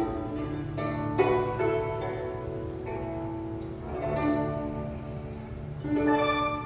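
Guzheng ensemble playing: plucked zither chords with notes ringing on between them, strongly accented about a second in, at about four seconds and again near the end.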